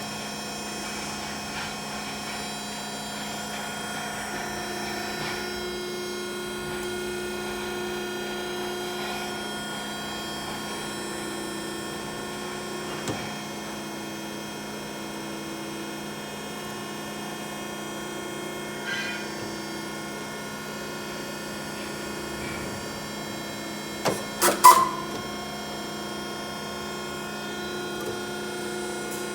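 Steady electric hum of shop machinery while a steel U-bolt is being made, with a few light metallic clicks and, near the end, a quick run of sharp metal clanks.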